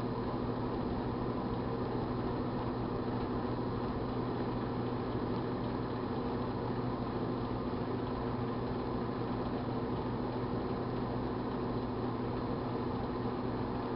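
A 1978 GE Dual Wave microwave oven running with a steady electrical hum.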